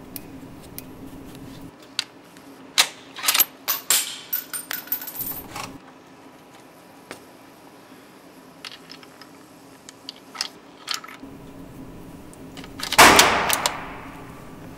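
A rifle and its scope being handled on a shooting bench: a run of sharp metallic clicks and knocks, then scattered ticks. About thirteen seconds in comes one loud bang that echoes and dies away over about a second and a half.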